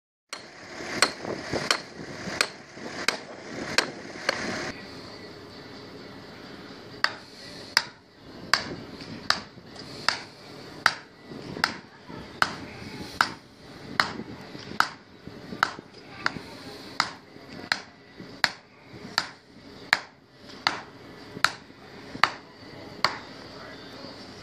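Hammer striking a steel form stake over and over, each blow a sharp ringing clank, driving the stake in to hold a concrete slab form. The blows come about two a second at first, stop for a couple of seconds, then go on at a steady beat of a little over one a second.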